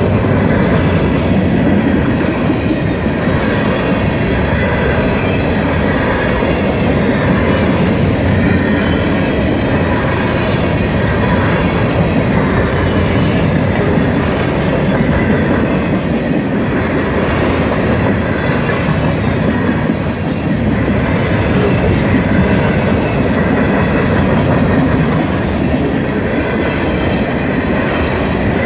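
Freight train of covered hopper cars rolling steadily past at a grade crossing, its wheels clattering over the rails in a continuous loud rumble.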